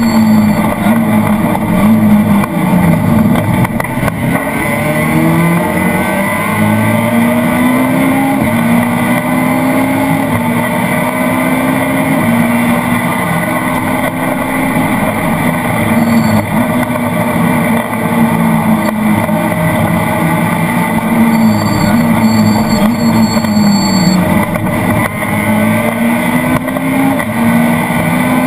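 Citroën Saxo VTS rally car's four-cylinder engine heard from inside the cabin, revving hard with its pitch climbing and dropping again and again at the gear changes, over loud road and tyre noise.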